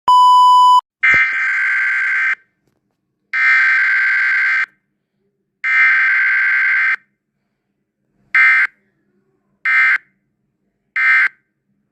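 Emergency alert system alarm signalling a terrorist-attack warning. It opens with a short steady beep, followed by three long, loud, buzzing tones of about a second and a half each and then three short ones.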